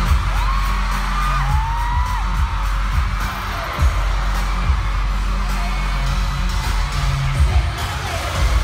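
Live K-pop concert music over arena speakers, with a heavy thumping bass beat and singing. Fans whoop and scream over it.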